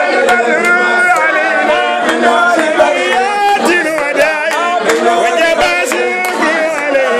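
A group of men singing together with a steady beat of hand claps, roughly two to three claps a second.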